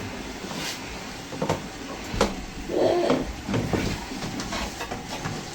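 A few light knocks and clicks of things being handled, with a brief low voice-like sound about three seconds in.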